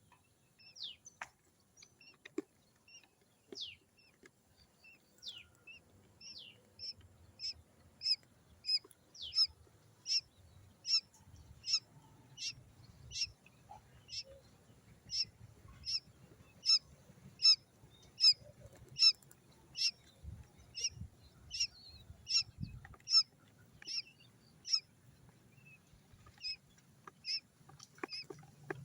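Quail chick peeping: short, high peeps, a few sliding downward at first, then a steady run of about three peeps every two seconds.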